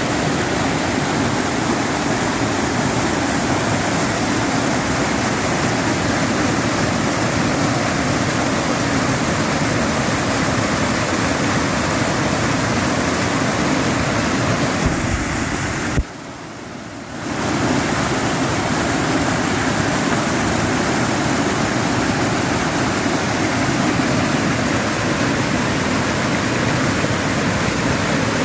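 Stream water rushing and splashing steadily. About halfway through, the sound drops out abruptly for roughly a second, then comes back.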